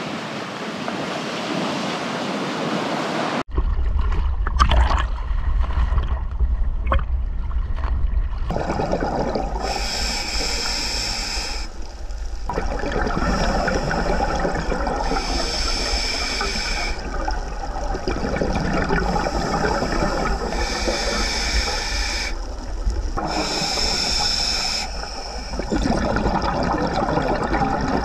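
Surf breaking on a rocky shore for the first few seconds, then underwater: a scuba diver breathing through a regulator, with four gurgling bursts of exhaust bubbles a few seconds apart over a low rumble.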